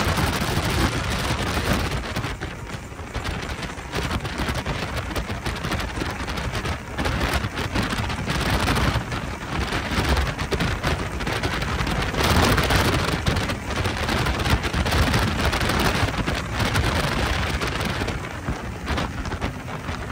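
Wind buffeting the microphone and water rushing along the hull of a boat running at speed, a loud, gusting roar that swells and eases.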